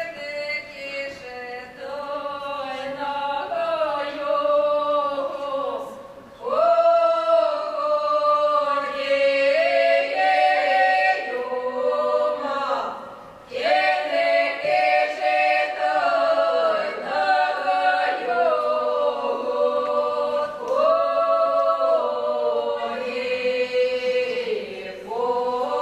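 Unaccompanied many-voiced singing of a central Ukrainian wedding song by a mixed folk ensemble, with a characteristic high, thin upper voice over the others. The song moves in long phrases with short breaths about 6 s and 13 s in, and again near the end.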